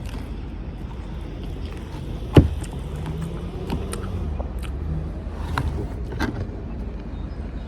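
A few sharp crunches of eating, the loudest about two and a half seconds in, over a steady low rumble.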